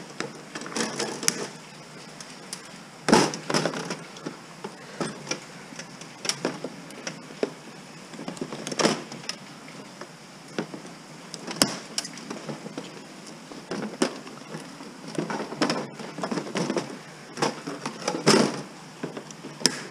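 Metal pliers clicking and knocking against a computer motherboard and its metal case as heat sinks are worked off the board. Scattered separate clicks and knocks, with a few sharper snaps about 3, 9, 12 and 18 seconds in.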